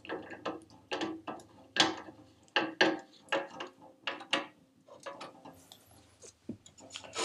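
Hand screwdriver driving a screw up through a glass drawer panel into a round metal knob, with a short sharp click at each turn, about two a second, growing fainter and sparser after about four seconds.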